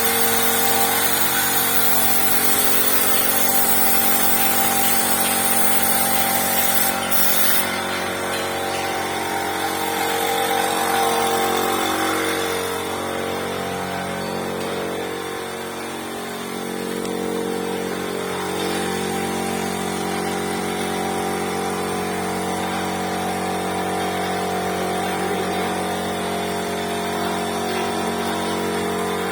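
An engine running steadily, its pitch shifting slightly now and then. A loud high hiss runs over it and cuts off suddenly about seven seconds in.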